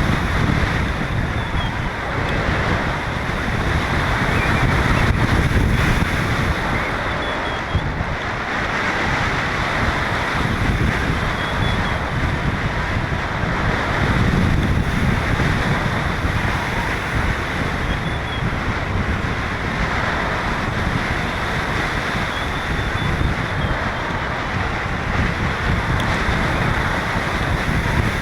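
Wind buffeting the camera's microphone as a hang glider flies in strong wind: a steady rushing roar, heaviest in the low end, that swells and eases every few seconds with the gusts.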